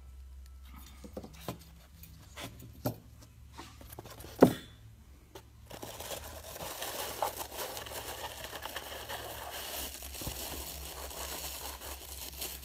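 Light clicks and knocks of small diecast metal model crane parts being handled, with one sharper knock about four and a half seconds in. From about six seconds on, continuous crinkling of plastic wrapping.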